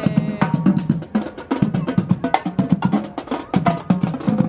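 Marching drum line playing a fast, busy cadence of sharp drum strikes and rolls.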